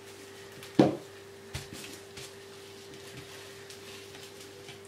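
Cling film being smoothed out on a table, with the film's cardboard roll knocking on the tabletop: a sharp knock about a second in, a softer one shortly after, and faint rustling and ticks. A steady hum runs underneath.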